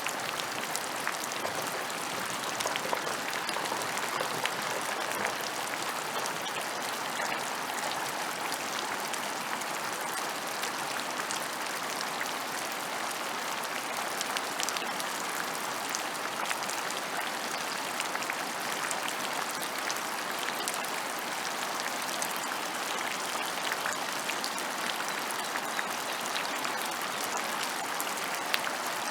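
Steady rain falling on open ground: an even hiss with many small drops ticking through it.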